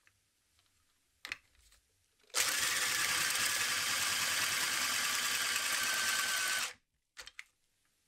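Boston pencil sharpener's spiral cutters shaving a pencil: a steady, even shaving noise for about four seconds that stops abruptly. There are short clicks before and after it.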